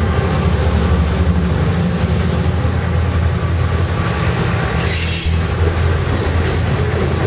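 Freight train of refrigerated boxcars rolling past at speed: a steady low rumble of wheels on rail, with a brief hiss about five seconds in.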